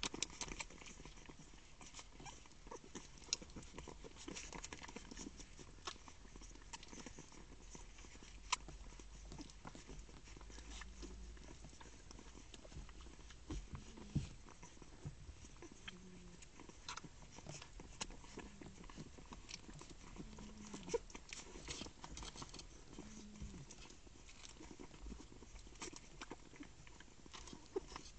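A litter of puppies suckling from their mother: faint wet sucking clicks and smacks throughout, with short low grunts every couple of seconds in the middle part.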